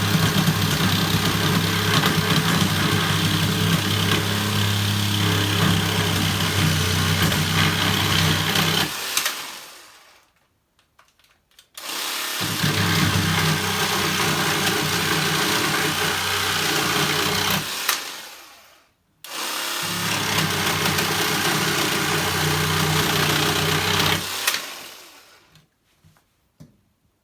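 Black & Decker cordless handsaw, converted to a Makita 7.2V lithium battery, running in three bursts. The first runs about nine seconds and the others a few seconds each, and each winds down as the trigger is let go.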